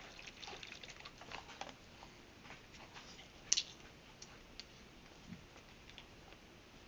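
Faint clicks and taps of a small plastic fragrance-oil bottle being handled and opened, with one sharper click about three and a half seconds in.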